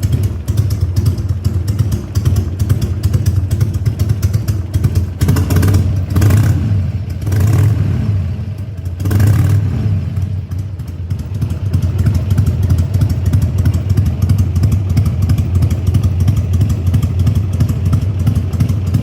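Carbureted Harley-Davidson V-twin engine idling with an uneven, pulsing beat. Three quick throttle blips come in the middle, then it settles back to idle.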